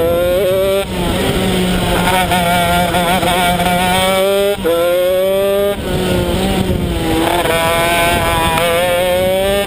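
Honda CR125 single-cylinder two-stroke engine of a shifter kart under hard acceleration. Its revs climb steadily, drop sharply about halfway and climb again, ease off and waver for a moment, then climb once more near the end.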